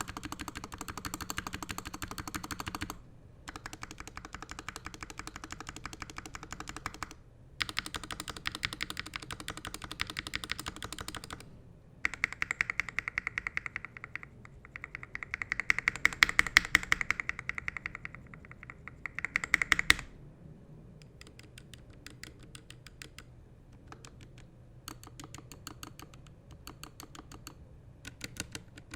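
Typing on a custom mechanical keyboard, a NovelKeys NK65 Entry Edition with lubed Gateron Ink switches, as a run of separate takes. The middle takes are louder and carry a ringing tone. The last third is quieter, sparser typing.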